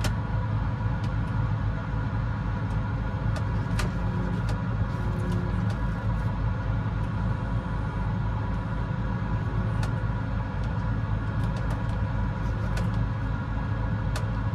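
Case IH 7120 combine's diesel engine running steadily, a deep evenly pulsing hum, with a few faint clicks scattered through.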